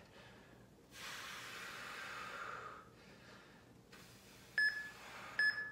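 Electronic interval-timer beeper sounding two short, identical beeps about a second apart near the end, counting down the last seconds of a timed work interval. Earlier there is a soft breathy rush lasting about two seconds.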